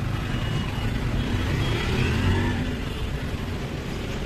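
Street traffic: a motor vehicle's engine running over a steady low rumble of road noise.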